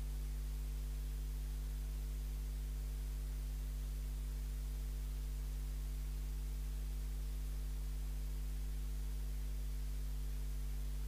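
Steady low electrical hum, a mains hum in the microphone and sound system, with nothing else heard over it.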